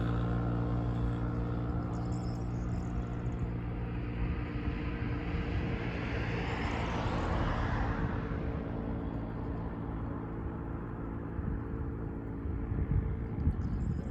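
A motor vehicle passing by, its noise swelling and fading about halfway through, over a steady low hum.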